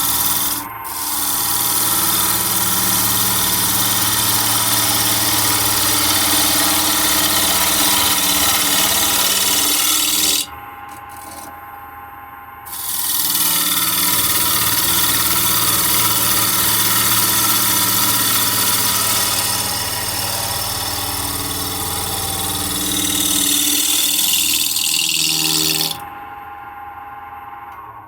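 Wood lathe spinning a mahogany block, with the loud hiss of a tool or abrasive held against the turning wood over a steady motor hum. The hiss runs in two long passes, breaking off for about two seconds around ten seconds in and stopping a couple of seconds before the end, where the lathe's hum fades as it winds down.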